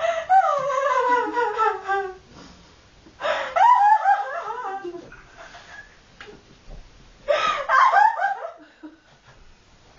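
A girl laughing in three bouts, the first sliding down in pitch.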